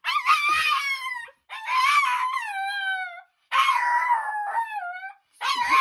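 Small dog howling in four long calls, each sliding down in pitch at its end, with short breaks between them.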